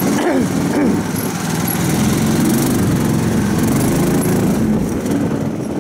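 Karakat all-terrain vehicle's 15 hp engine running steadily while under way, its pitch wavering slightly.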